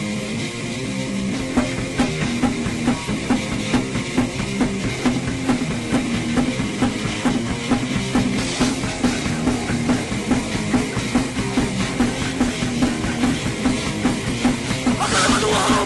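Punk rock band playing an instrumental passage: distorted electric guitar and bass, with a drum kit coming in about one and a half seconds in and keeping a steady, driving beat. The sound gets louder and brighter near the end.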